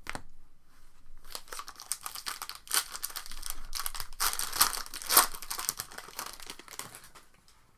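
Plastic trading-card pack wrapper being torn open and crinkled, a crackly rustling that starts about a second in, peaks a few times and dies away near the end.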